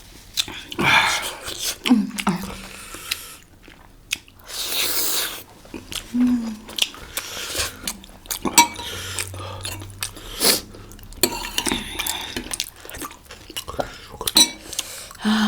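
Close-miked chewing of momo dumplings, with short clinks of cutlery against plates and bowls scattered throughout.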